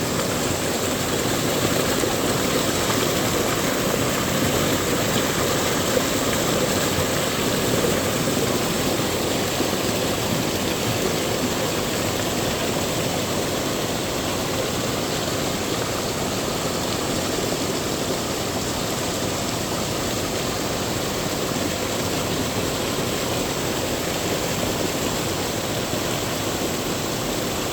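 A mountain stream rushing steadily over rocks, an even unbroken noise of water.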